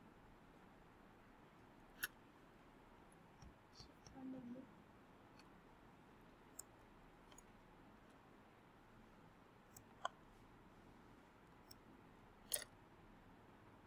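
Near silence with a few short, faint clicks from a computer mouse being clicked, the loudest near the end, and a brief faint low sound about four seconds in.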